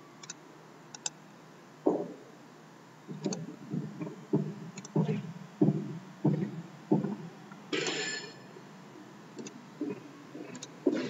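Computer mouse clicks, two sharp ones in the first second, as a file is picked and opened on screen. Then a run of short muffled low sounds, about one to two a second, and a brief hiss just before the eighth second.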